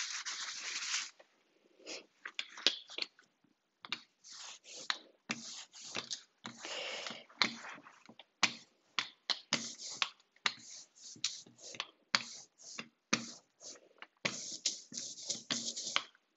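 Hand ink roller rolling tacky black etching ink over a printing plate and the ink slab, giving a sticky, crackling hiss in short irregular strokes, a sound the printmaker takes as the sign of good ink consistency. A cloth wipes across the plate in the first second.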